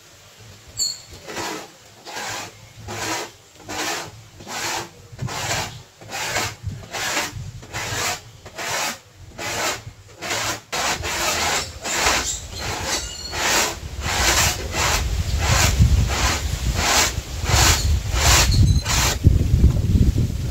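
An ear of dry corn being rubbed on a board grater, making a steady rhythm of rasping strokes, roughly two a second. It is the grating stage of making corn flour by hand.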